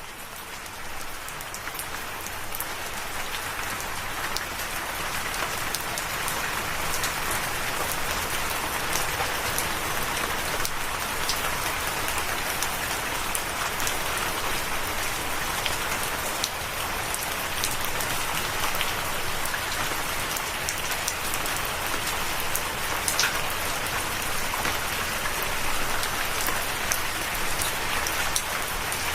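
Steady rain falling, with the sharp ticks of single drops scattered through it. It fades in over the first few seconds and then holds steady.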